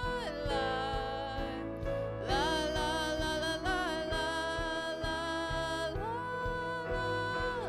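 Slow worship music: a voice sings long held notes that glide from one pitch to the next over a soft, steady instrumental backing.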